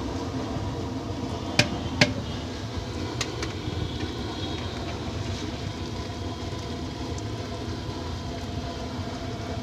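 A large perforated metal strainer knocks twice, sharply, against the rim of an aluminium cooking pot as parboiled basmati rice is lifted out of the boiling water. A few lighter metal clicks follow, over a steady background hum.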